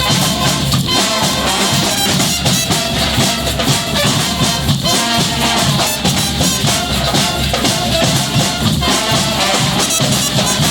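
Brass band playing an upbeat tune, horns over a steady drum beat.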